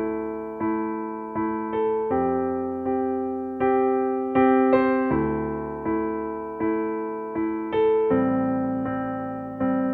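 Slow, gentle piano music: soft chords and single notes struck about once a second, each ringing and fading before the next.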